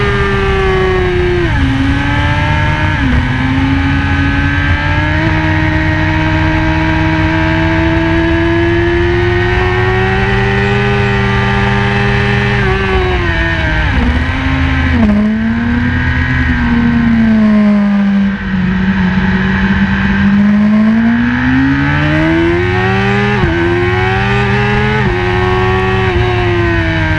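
BMW S1000RR's inline-four engine at high revs on track, heard onboard. The pitch drops about a second in, climbs slowly for several seconds, falls sharply with several dips past the middle as the bike slows and changes down, then rises again in steps through upshifts near the end.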